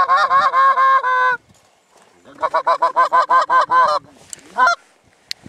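Canada goose honks and clucks in rapid runs, about six or seven calls a second: one run lasting about a second and a half, a second run of about two seconds after a short gap, then a single honk near the end.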